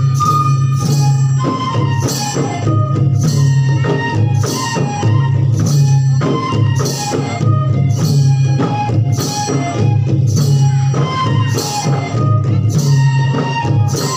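Live Bodo folk dance music: long kham drums beat a steady rhythm of about two strokes a second, with bright metallic jingling on each beat and a melody of held notes above.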